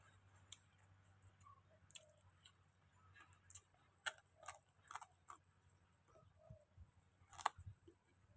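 Faint, scattered clicks and smacks of a person chewing and eating, a second or so apart, the loudest near the end.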